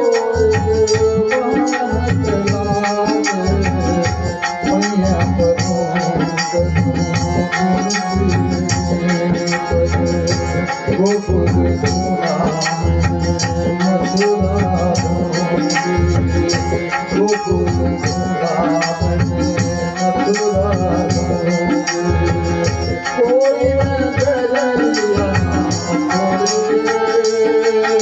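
Bhajan, a Hindu devotional song, sung with hand drums and other percussion keeping a quick, steady beat under a gliding vocal line.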